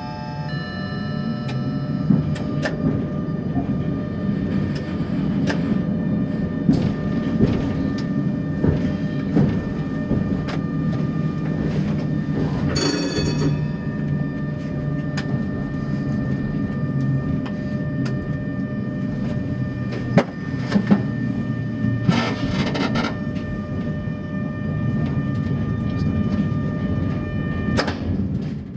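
Tram running along street track: a steady low rumble of the wheels on the rails, broken by sharp clicks as the wheels cross joints and points. About halfway through there is a brief shrill squeal.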